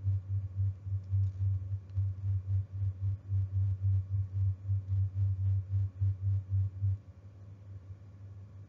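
A low, throbbing hum that pulses about three times a second and cuts off suddenly about seven seconds in, leaving a fainter steady hum.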